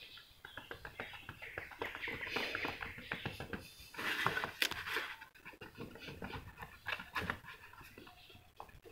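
Fingertips rapidly rubbing and buffing the glossy clear-coated plastic body shell of a model car, a dense run of quick, uneven strokes that is loudest between about two and five seconds in. This is the final polishing pass to bring up the shine after the dust specks in the clear coat were sanded flat.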